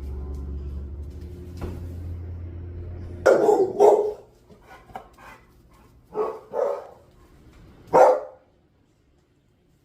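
A steady low hum stops about a third of the way in. Then a dog barks five times, in two quick pairs and a final single bark, with a few fainter sounds between.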